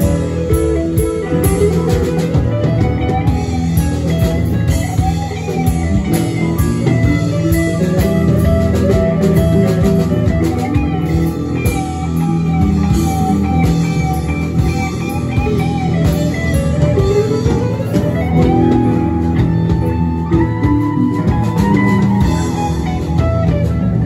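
Live rock band playing an instrumental jam: an electric guitar lead with long, sliding notes over a drum kit and keyboard.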